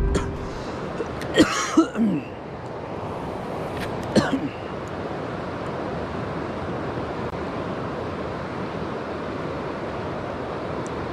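Steady rush of a river flowing over rocks, with a few short sharp knocks or scrapes about one and a half to two seconds in and one more about four seconds in.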